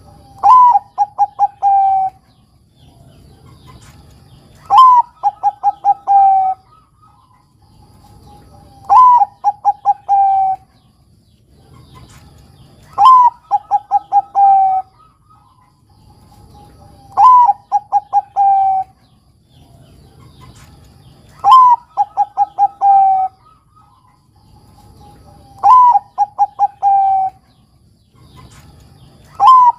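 Zebra dove (Bangkok-type perkutut) cooing its song over and over, one phrase about every four seconds. Each phrase is a rising first note, a quick run of about five short notes, and a longer, lower held final note.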